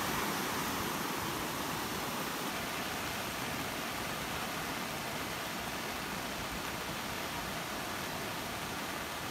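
Steady rush of surf as low waves break and wash up over wet sand.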